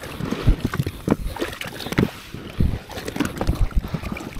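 Kayak turning in shallow water: irregular knocks and thumps on the hull and gear, over water sloshing.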